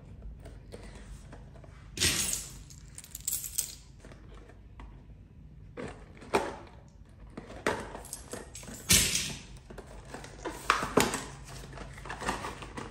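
Handling and opening a reed diffuser's cardboard box: scattered cardboard and paper rustles, scrapes and small knocks on a table. The loudest come about two seconds in and again about nine seconds in.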